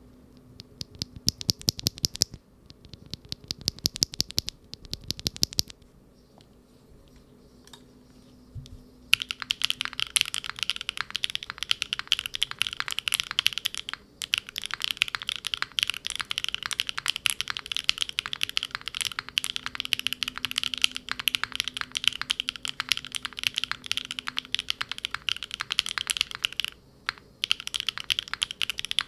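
Mechanical keyboard with linear switches (Unikeys Udon: PC top, fibreglass-filled PA66 bottom housing, single-stage 48 g spring) in an aluminium-plate Neo70 with no foam and GMK keycaps, being typed on. Two short runs of quick key presses come first, then a pause, and from about nine seconds in there is fast continuous typing, a steady clatter of keystrokes bottoming out, with brief breaks.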